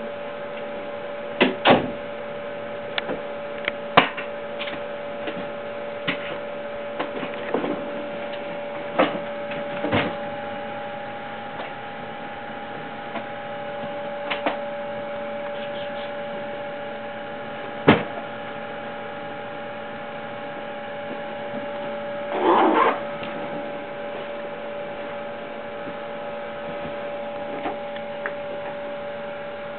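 Chinchillas moving about a wire cage: scattered sharp clicks and knocks as they hop onto and off its ledges, the loudest a single knock about two thirds of the way in, and a brief rattle soon after. A steady electrical hum with a few fixed pitches runs under it all.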